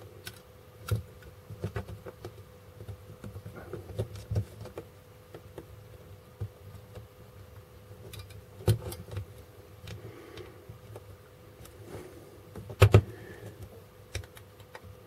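Small clicks, taps and light rattles of plastic parts being handled as a desoldering gun's plastic housing and its spring-loaded trigger parts are fitted back together by hand, with a few sharper knocks, the loudest two close together near the end. A faint steady hum runs underneath.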